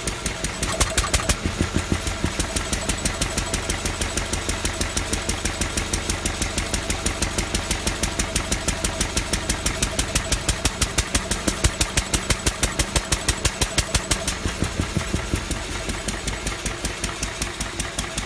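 Lister D single-cylinder stationary engine running on its governor, a steady, even beat of firing strokes. It picks up speed about a second in and is slowed again near the end.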